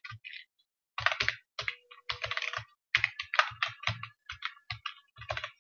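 Typing on a computer keyboard: a run of irregular keystroke clicks with a few short pauses.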